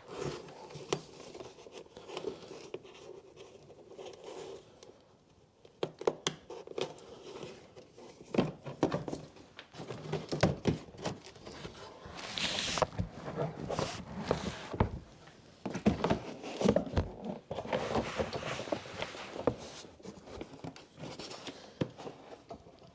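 Hands working plastic wiring clips and a wiring loom inside a car's wheel arch: irregular clicks, knocks and rustling, with a brief hiss about halfway through.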